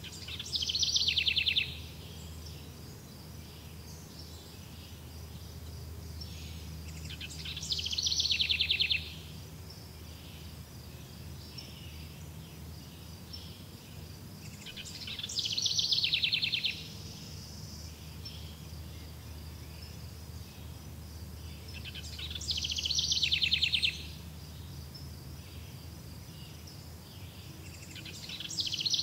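Buzzy insect trills, each about a second and a half long, swelling and then cutting off sharply. They repeat about every seven seconds, five times in all, the last near the end. Under them run a steady high insect chirping and a low background rumble.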